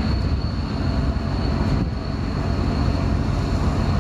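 Steady engine rumble with a constant high-pitched whine above it.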